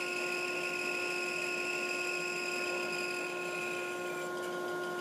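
Band saw running steadily with a 10-teeth-per-inch, half-inch-wide blade slowly slicing a disc off an epoxy-laminated wood block: a steady machine hum with several held tones over a light hiss.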